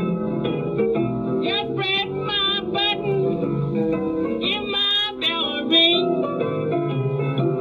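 A 1936 blues record: a woman singing, with piano and plucked string bass accompaniment.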